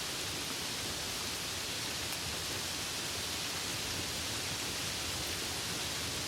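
Steady rain falling, an even hiss without distinct drops.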